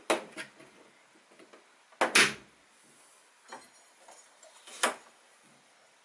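Knocks and clunks of a painted plywood trunk extension being shifted into place against the open rear of a Citroën Dyane: a sharp knock at the start, a louder double clunk about two seconds in, then two lighter knocks.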